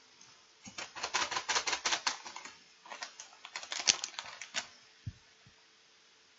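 Potato chip bag crinkling as it is handled, in two flurries of rapid crackles, each under two seconds long.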